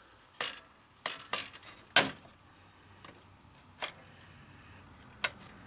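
Snap ring pliers and a snap ring clicking and clinking against the steel counterbalance shaft and housing of a John Deere seat suspension as the ring is worked toward its groove: about six short, sharp metallic clicks, the loudest about two seconds in.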